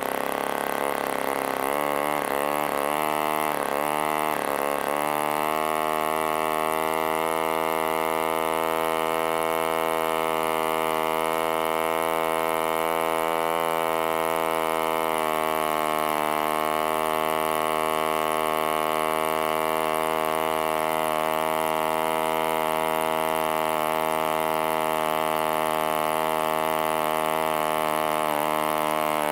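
1947 HP Series I 3.5 cc two-stroke spark-ignition model aero engine running with its propeller at roughly 4,100 to 4,900 rpm. Its note wavers up and down for the first few seconds, then settles and runs steadily.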